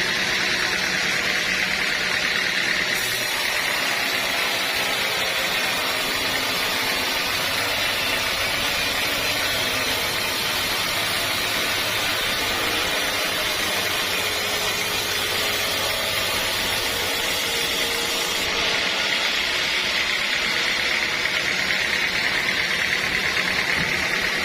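Sawmill saw machinery running steadily. A harsher, higher hiss joins about three seconds in and drops away a few seconds before the end.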